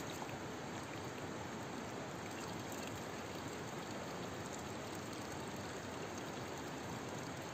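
Spring water running steadily from a spout, a continuous even trickling and splashing.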